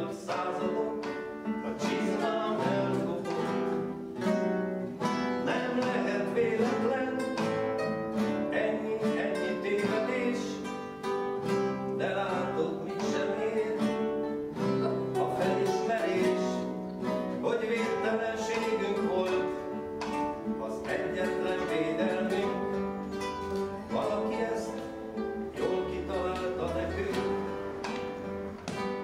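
Acoustic guitar music, a run of plucked notes.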